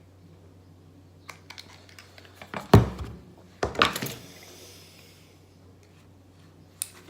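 Metal parts of a hair clipper being handled and knocked against each other and the work surface while being fitted back together: a few light clicks, then two louder clanks about a second apart, and more clicks near the end.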